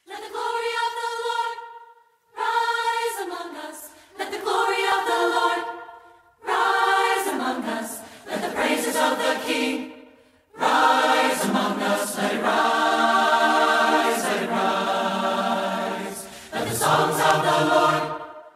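A choir singing a cappella, in short phrases broken by brief pauses, then a longer unbroken passage from about ten seconds in.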